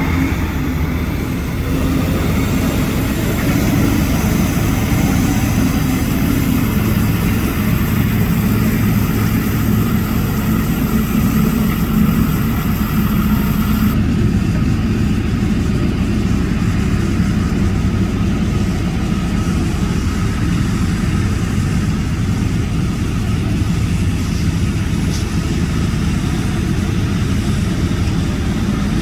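AM General M927 military truck's diesel engine running steadily at idle. About halfway through, a high hiss above the engine sound drops away abruptly.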